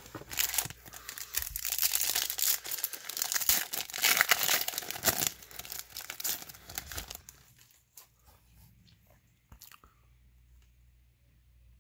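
Foil wrapper of a Panini Triple Play baseball card pack being torn open and crinkled in the hands, a dense crackle that stops about seven seconds in.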